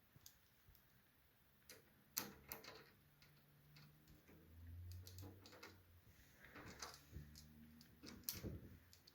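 Faint scattered clicks and ticks of a screwdriver driving a tight-fitting screw through a plastic case-fan frame into the PC case, the sharpest click about two seconds in and a cluster near the end.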